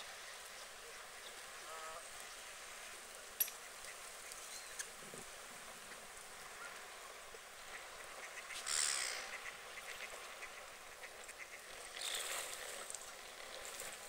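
Ducks calling now and then with short quacks over a faint steady background. A sharp click comes early, and there are two brief rushes of hiss, about midway and near the end.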